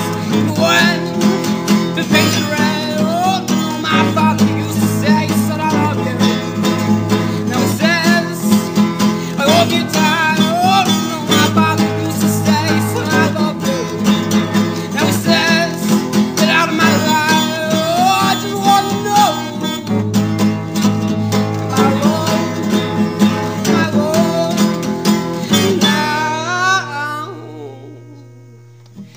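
Acoustic guitar music with no clear words, fading down near the end.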